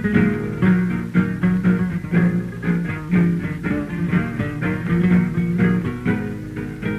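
Two guitars playing an instrumental tango interlude, rhythmic plucked chords over a moving bass line, with the sound of a 1930 78 rpm record.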